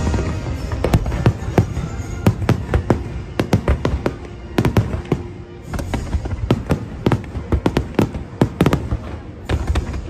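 Aerial fireworks bursting: a rapid, uneven volley of sharp bangs and pops, several a second, over a low rumble and the show's music.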